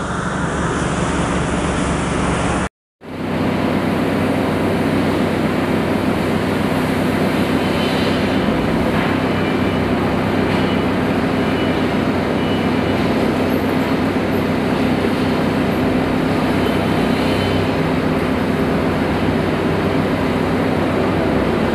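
Forklift engine running with a steady drone. The sound drops out completely for a moment about three seconds in.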